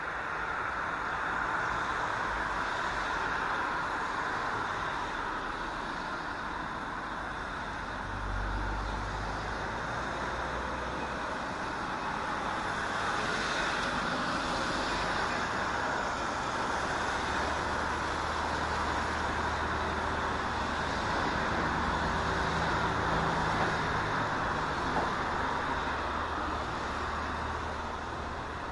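Steady road traffic noise, with a low engine hum coming in about a third of the way through and holding until near the end.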